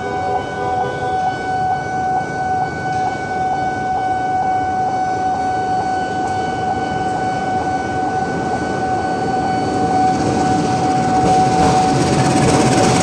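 KA Pangrango passenger train passing, with a steady high-pitched tone throughout. A rushing rumble grows louder from about ten seconds in as the train comes closer.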